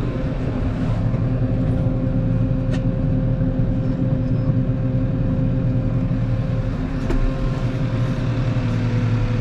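Farm tractor engine running at a steady speed, a constant drone with a thin steady whine above it.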